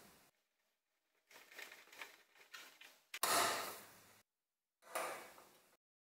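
Metal heater parts being handled and fitted: short bursts of clatter and scraping from the wire fan guard and sheet-metal housing. The loudest is a sudden knock a little past halfway.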